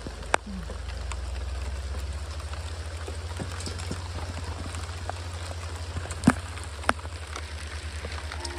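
Small hailstones falling and ticking on the ground and surfaces around, with many scattered light ticks and three sharper clicks, about a third of a second in, about six seconds in and again a moment later, over a steady low rumble.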